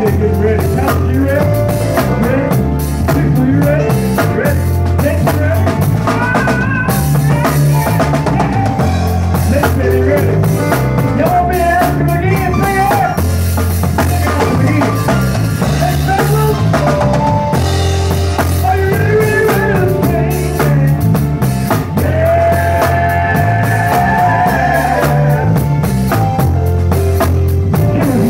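A gospel band playing: drum kit with bass drum and snare rimshots under a bass line stepping between notes and a bending lead melody.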